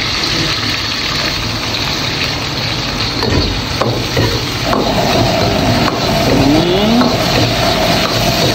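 Garlic and red chilli sizzling in hot oil in a wok over a gas wok burner that runs with a steady rushing noise, while a metal wok ladle scrapes and knocks against the wok a few times. About five seconds in, a steady hum joins.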